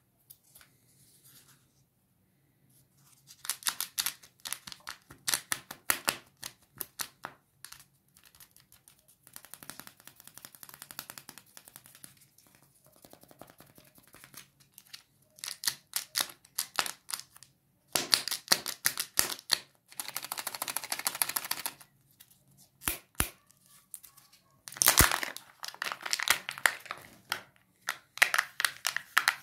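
Plastic wrapping of a Kinder Joy egg being handled and stripped off. There are bursts of crinkling and crackling, a longer tearing stretch about two-thirds of the way through, and two sharp clicks a few seconds after it.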